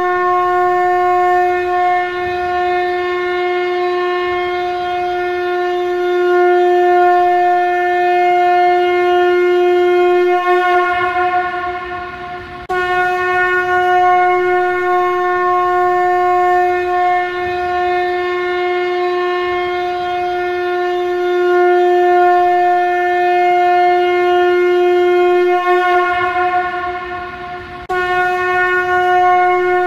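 A shankha, a Hindu ritual conch shell, blown as a trumpet in long, steady held notes. Twice the note wavers and fades out, and after a short gap a fresh blast starts abruptly.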